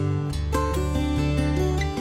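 Background music: acoustic guitar with notes that change every quarter to half second over a steady bass.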